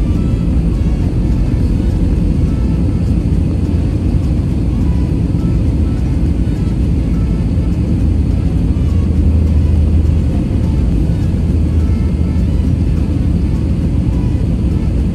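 Steady low rumble of a jet airliner heard from inside the cabin, swelling slightly about two-thirds of the way through.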